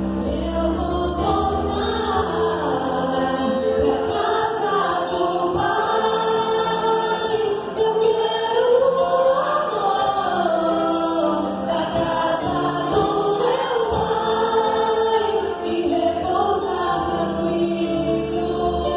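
Several voices singing together in a gospel song, with pitch lines moving up and down in parallel.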